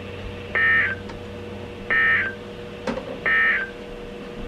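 Three short bursts of EAS/SAME digital data tone from NOAA Weather Radio, each under half a second and about 1.3 s apart: the end-of-message code that closes the severe thunderstorm warning. A faint steady radio hum runs underneath.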